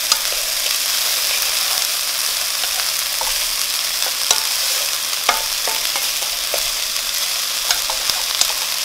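Diced onion, jalapeño and green onion sizzling steadily in olive oil in a nonstick frying pan, with a spatula stirring them and scattered taps and scrapes of the spatula against the pan.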